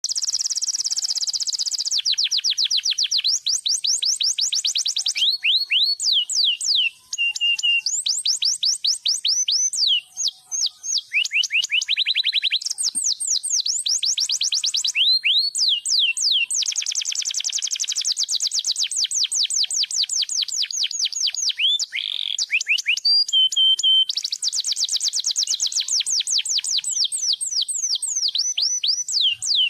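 Domestic canary in full, lively song: long fast trills and rolls of rapid repeated high notes, some sweeping down, running almost without a break.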